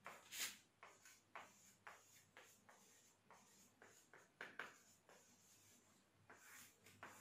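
Marker writing on a whiteboard: faint, short scratching strokes at an uneven pace, one or two a second.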